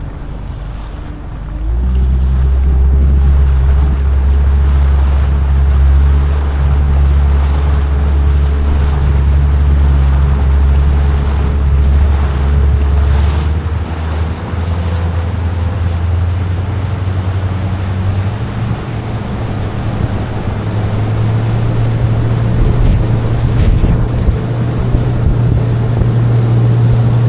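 Honda 90 four-stroke outboard motor running the fishing boat under way, throttled up about two seconds in to a steady run, its note shifting a little past halfway. Wind buffets the microphone throughout.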